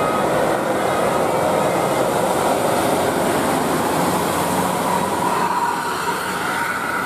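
A large bus passing close by: a steady rush of engine and tyre noise.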